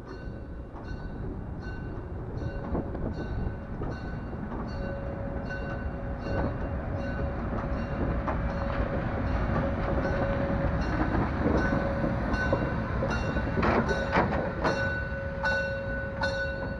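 DR class 52.80 steam locomotive 52 8141 rolling past on the track, its rumble growing louder as it nears. A high ding repeats a little more than once a second throughout, and a steady tone joins about five seconds in.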